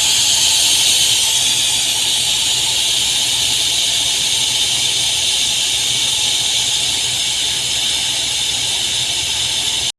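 Pressurised nitrogen being vented from the air conditioner's refrigerant pipework: a loud, steady hiss of escaping gas that cuts off suddenly near the end. This purges the test nitrogen before the system is vacuumed.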